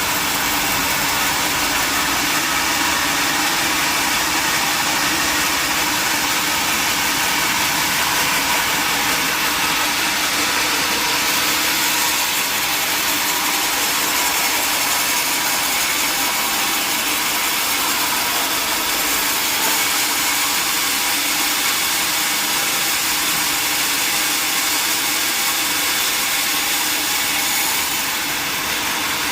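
Sawmill machinery running steadily, a loud even mechanical noise without pauses.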